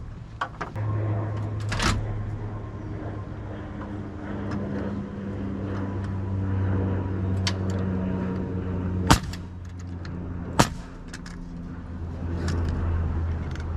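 Pneumatic framing nailer firing two nails into framing lumber, about a second and a half apart, with lighter knocks of the boards being set in place. A steady low machine hum runs underneath.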